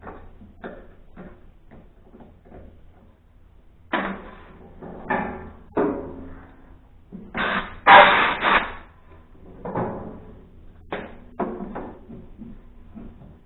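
Tools working on the anvil bolts of a DR PRO XL575 wood chipper as they are loosened: light clicking at first, then a series of sharp metal knocks and clanks. The loudest knocks come about eight seconds in.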